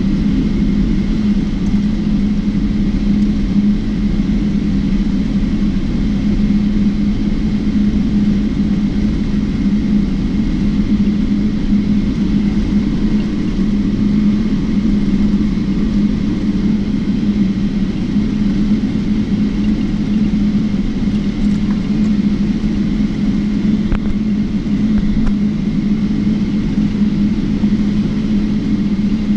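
Cabin noise of a Boeing 777-300ER taxiing, its GE90-115B engines at idle thrust: a steady low hum with a faint, constant high whine above it.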